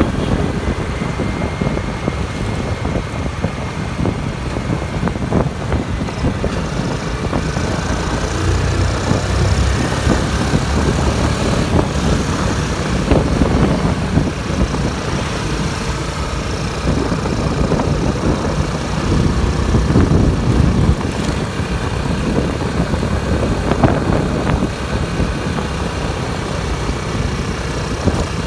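Engine and road noise of a vehicle driving slowly through town traffic, with motorcycles and cars close by; the level swells and eases as they pass.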